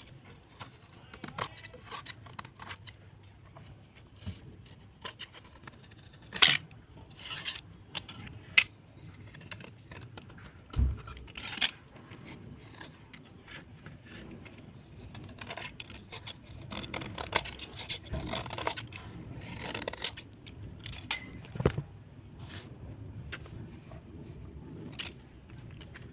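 Wet slate being scraped and crunched. The scraping and rubbing is irregular, with sharp cracks and snaps now and then.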